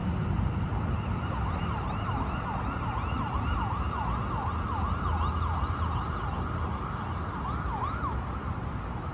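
Distant emergency-vehicle siren in a fast yelp, its pitch sweeping up and down a few times a second. It comes in about a second in and fades near the end, over a steady low city rumble.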